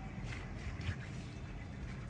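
Cleaver slicing through raw moray eel meat on a plastic cutting board: a few short wet cuts, with one sharper knock just before a second in, over a steady low rumble.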